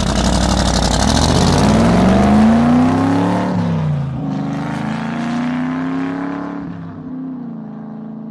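An engine revving: its pitch climbs for about three seconds, falls back, climbs again and then eases off near the end, with a loud hiss over the first few seconds.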